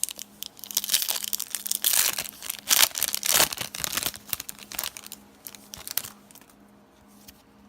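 Foil trading-card pack wrapper being torn open and crinkled, a dense crackling for the first few seconds that thins out and dies away.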